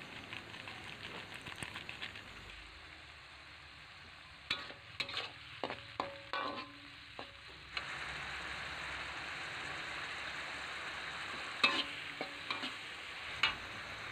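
Diced tofu with shallots, garlic and chilli sizzling in a wok in a little oil and water, with a spatula knocking and scraping against the wok as it is stirred. A cluster of knocks comes near the middle and a few more near the end, and the sizzle grows louder and steadier about eight seconds in.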